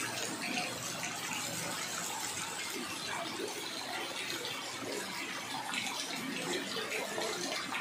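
Steady rain falling on a street flooded with running water: an even wash of water noise.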